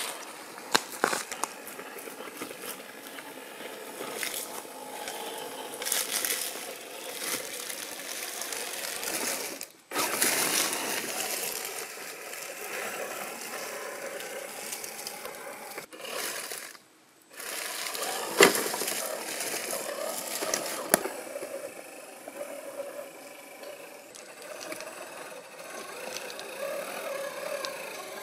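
Electric drivetrain of a 1/8 scale RC rock crawler, its Yeah Racing 550 21T brushed motor and gears whirring as it crawls slowly over rock, with a few sharp clicks and knocks from the chassis and tyres on stone. The sound breaks off briefly twice.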